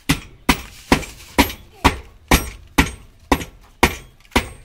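A piece of brick banging against the rusty steel latch of a tractor trolley's tailgate, a regular series of sharp metallic strikes about two a second, ten in all, to knock the stuck latch loose.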